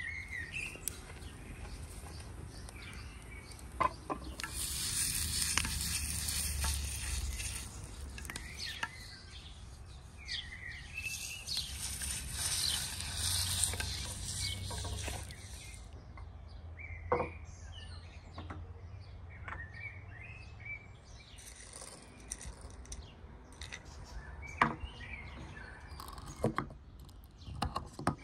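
A cloth scrubbing a wet stone slab, a steady rough hiss lasting about ten seconds, with birds chirping in the background. Near the end a wooden pestle knocks and grinds in a wooden mortar, a run of sharp taps.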